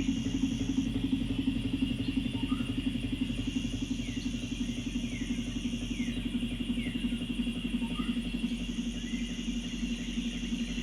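An engine running steadily with a fast, even pulse. Over it come short falling chirps, and a high hiss that switches on and off every couple of seconds.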